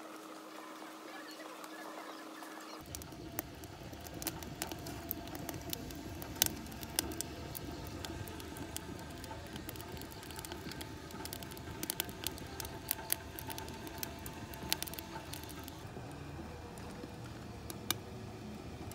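Wood fire burning hard in a homemade stainless-steel rocket stove: a steady rush of flame with frequent sharp crackles and pops from the burning wood. It starts about three seconds in, after a steady faint hum.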